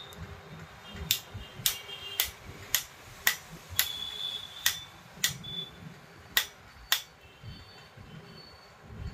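About ten light, sharp metallic taps, roughly two a second, each with a short ring: a small hammer tapping a new bearing into place on the hand cutter's armature.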